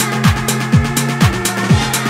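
Loud electronic dance music in a techno style: a steady four-on-the-floor kick drum, about two beats a second, with a crisp tick between beats over a held bass line.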